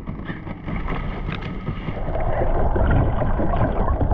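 Water sloshing against a small fishing boat's hull, with wind on the microphone. About halfway through, the sound turns into a louder, denser underwater rush and gurgle as the microphone goes below the surface.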